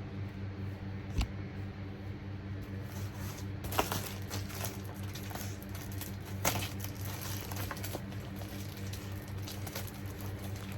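Packaging being handled and unwrapped: rustling and crinkling, with three sharp clicks or taps, the loudest about four seconds in, over a steady low hum.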